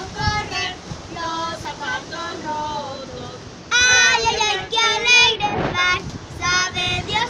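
Children's voices singing, high-pitched, with held notes. The singing gets louder about four seconds in.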